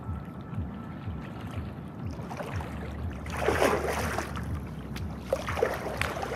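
Small boat running across the water: a steady low rumble with repeated low thumps, and a loud splash of water about three and a half seconds in, then smaller splashes. Wind on the microphone.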